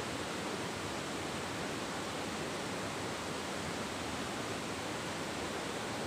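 Steady rush of muddy river water flowing between boulders.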